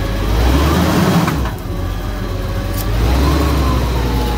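A GM 4.3 Vortec V6 running on propane, revved with two blips of throttle: the pitch rises about half a second in, falls back after a second, then rises again and holds. The engine has just been freed after seizing from running out of oil and knocks; the owner fears it will blow.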